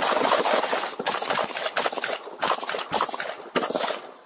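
Rapid police gunfire heard through a body camera's microphone: many shots in quick succession with a few short lulls, stopping just after four seconds in.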